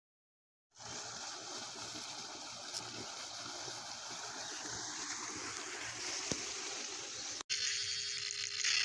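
Water pouring steadily from a tubewell's outlet pipe into a concrete tank, starting about a second in. Near the end it gives way to a different, louder sound with a steady tone.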